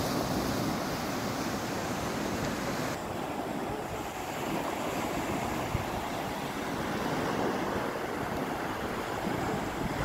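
Small surf breaking and washing up a sandy beach in a steady hiss, with wind rumbling on the microphone.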